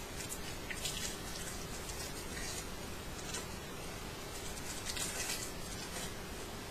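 Short, irregular rustling crackles, several of them a second or so apart, over a steady recording hiss.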